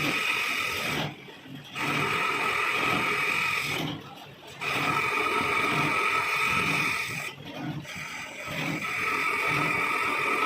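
Lathe cutting a coarse 3 TPI thread in a cast iron nut: a steady running sound with a high whine, in stretches of about three seconds broken by three short drops.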